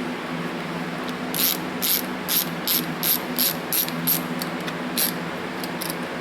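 A hand ratchet working during carburetor reassembly: a run of about ten short, sharp ratcheting strokes, two or three a second, starting about a second in and stopping near the end. A shop fan hums steadily throughout.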